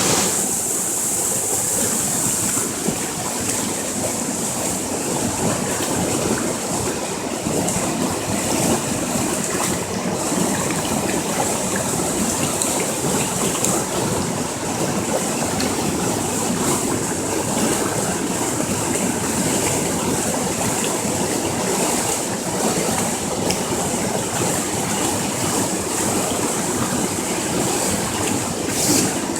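Waterfall: water falling and rushing in a steady, even wash of noise.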